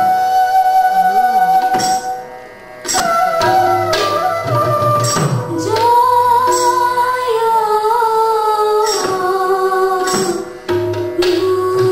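Live Sattriya dance music: a melody of held notes on bamboo flute with singing, over occasional percussion strokes, with a short break about two seconds in.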